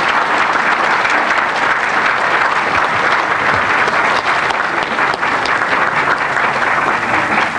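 Audience applauding: dense, steady clapping from a roomful of seated people.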